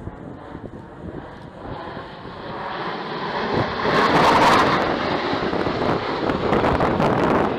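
Jet engines of four Blue Angels F/A-18 Super Hornets flying a formation pass. The roar swells from a distant rumble, is loudest about halfway through, and stays loud as the jets go by.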